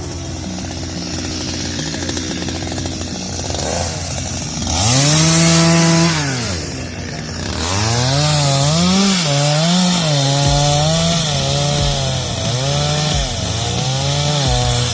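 Chainsaw engine revving up about five seconds in, held at high revs for a second or two, then dropping back. From about eight seconds it revs up and down again and again.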